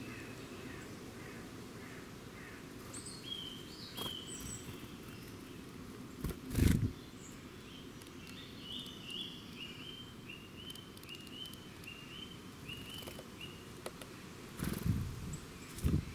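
Wild birds calling and singing: short high chirps, then a run of about ten repeated notes at about two a second, over a steady low rumble. A loud thump about six and a half seconds in and two more near the end stand out above the birdsong.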